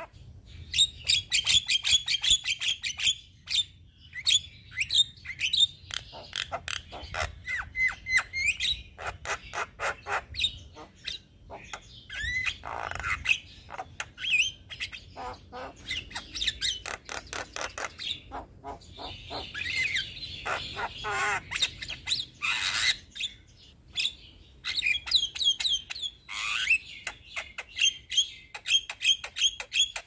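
Young Javan myna singing on and on: a fast string of sharp clicks and chattering notes mixed with harsh squawks. A few rising whistled slides come in between.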